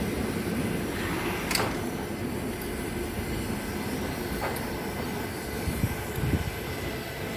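Train running past with a steady low rumble, and one sharp click about a second and a half in.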